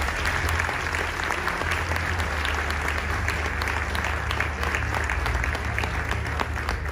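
Audience applauding: many hands clapping together, with a steady low hum underneath.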